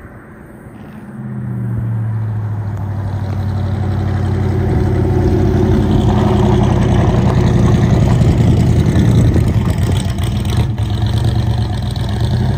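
Small-block Chevrolet 350 V8 of a 1956 Chevrolet 210 drag car running at low speed as the car drives up and passes close by. The engine note holds a steady pitch and grows louder from about a second in, loudest near the middle of the pass.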